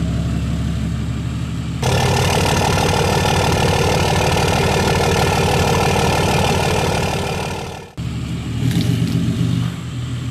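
Diesel truck engine running steadily, then abruptly much louder and harder-running from about two seconds in. That cuts off suddenly near eight seconds and gives way to steadier running again.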